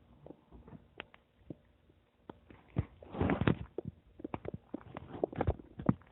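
Human stomach gurgling: a string of small wet pops and clicks, with a louder bubbling rumble about halfway through followed by a quick run of pops.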